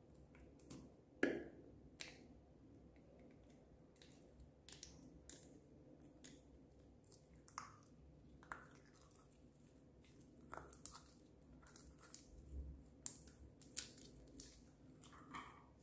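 Slime being squeezed by hand, giving scattered soft sticky clicks and small pops. A sharper click comes about a second in, and a quicker run of clicks comes near the end, as slime is pressed out of a plastic Easter-egg capsule onto clear glitter slime.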